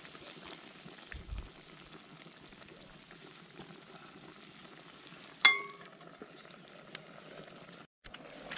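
Chopped frog meat frying in a steel pan over a wood fire with a steady sizzle, just after vinegar has been poured in. About five and a half seconds in comes a single sharp metallic clink that rings briefly.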